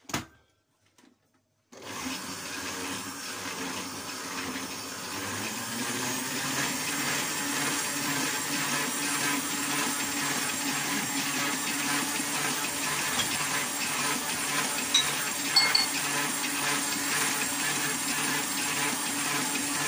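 A click, then an electric stand mixer starts about two seconds in and runs steadily, its dough hook turning through a dry flour mixture for bread dough.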